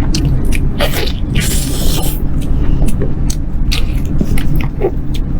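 Close-miked chewing and mouth sounds of someone eating: a run of short, wet crackles and smacks several times a second, over a steady low hum.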